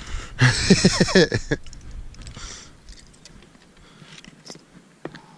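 A person's brief wordless vocal sound about half a second in, a run of short sliding-pitch sounds, followed by faint scattered clicks and knocks.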